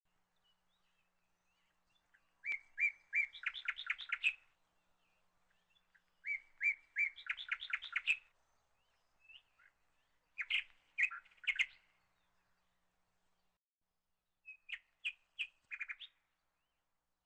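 A songbird singing four short phrases a few seconds apart, each a few clear notes followed by a quick run of notes.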